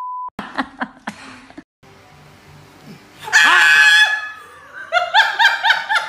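A woman's loud, high-pitched scream about three seconds in, then rapid bursts of shrill laughter near the end. A short steady beep tone cuts off right at the start.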